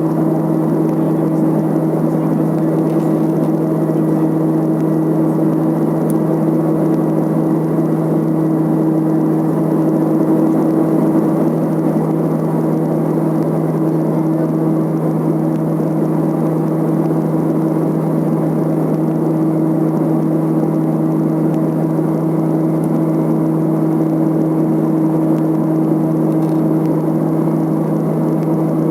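Let L-410's twin turboprops running steadily: a loud, even propeller drone with a strong low hum that does not change.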